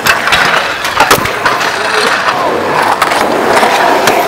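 Hard wheels rolling across the concrete of a skatepark bowl: a steady rough rumble, with a sharp knock at the very start and another about a second in.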